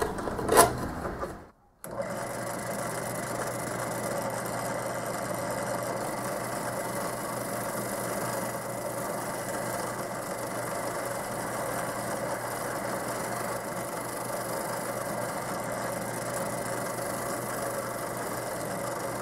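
A drill press spinning a Harbor Freight sanding drum runs steadily together with a shop vac pulling dust through the table's port, while a wooden piece is sanded against the drum. The steady machine sound starts about two seconds in, after a brief break.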